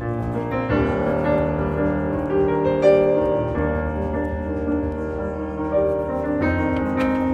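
Background piano music with held notes changing every second or so.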